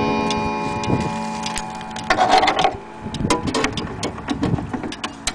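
Coiled wire gong of a Samurai pendulum wall clock ringing out and fading over the first second or so, then the clock's movement ticking, with irregular clicks and a knock from handling about two seconds in.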